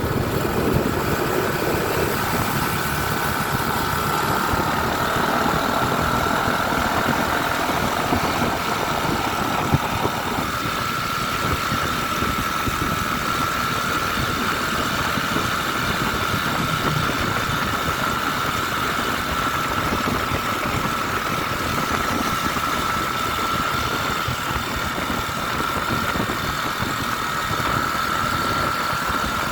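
A motor vehicle engine running steadily, with a steady high whine above it.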